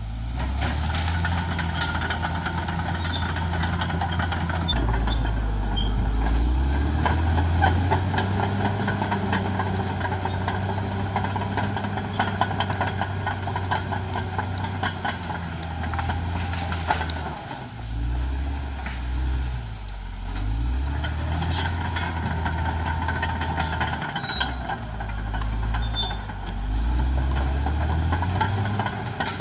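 Caterpillar D6R XL bulldozer's diesel engine working under load, its note rising and falling several times. A dense crackling clatter runs through the middle stretch.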